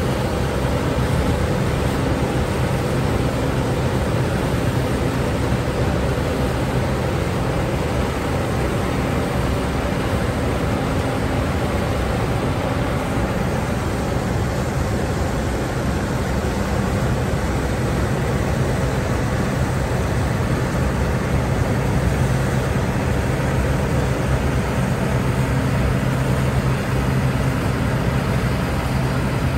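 Combine harvester running steadily under load while cutting and threshing standing grain: a continuous engine hum with the threshing drum and mechanism over it.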